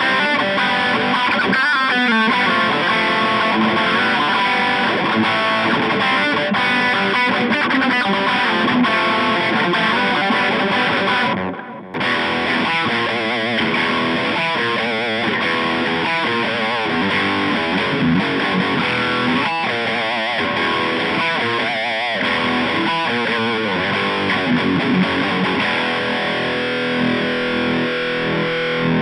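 Electric guitar played through a Boss Katana Mini 7-watt practice amp on a distorted channel, riffing and soloing continuously, with a brief break about eleven and a half seconds in.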